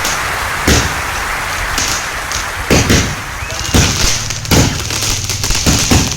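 Fireworks going off: about six sharp bangs at irregular intervals over a continuous hissing crackle.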